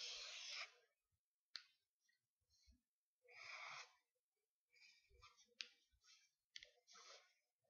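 Felt-tip marker drawing on paper: faint scratchy strokes, one at the start and another about three and a half seconds in, then a run of shorter strokes with small clicks from about five seconds in.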